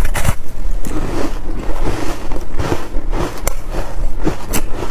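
Close-miked biting and chewing of a hard chunk of buckwheat freezer ice: a crack as it is bitten off near the start, then irregular crunching, with sharp cracks again about three and a half and four and a half seconds in.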